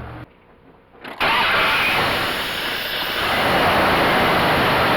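1997 Dodge Ram pickup's V8 starting up on its newly fitted starter about a second in, then running steadily; the new starter has cured the no-start.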